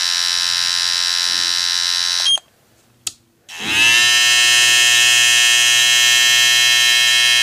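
Two cordless hair trimmers run one after the other, a Kemei KM-I32s and a green trimmer. The first buzzes steadily and switches off about two seconds in, then there is a click. The second starts with a brief rising whine as its motor spins up and settles into a steady, slightly louder buzz at a different pitch.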